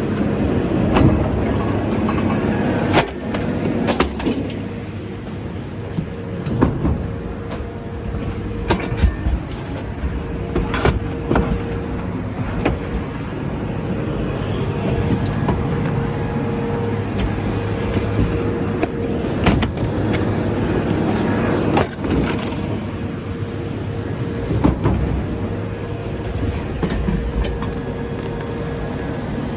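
An engine running steadily with a constant whine, with scattered sharp clanks and knocks of scrap metal being handled.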